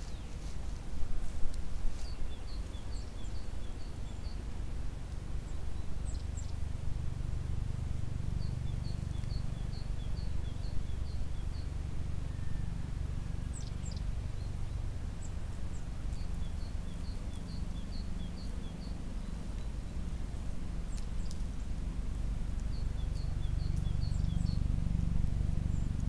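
A small songbird sings a short phrase of quick, evenly spaced high notes, repeated four times, with a few single high calls in between, over a steady low rumble.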